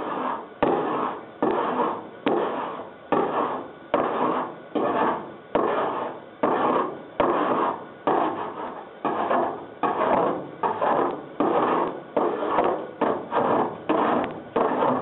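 Body file rasping across rough lead body solder on a car body panel in about twenty push strokes, each starting sharply and fading out. The solder was left rough, so each stroke shakes the car.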